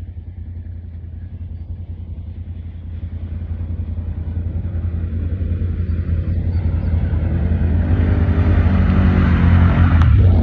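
Off-road vehicle engines running under a steady low hum, with one engine growing steadily louder as it approaches.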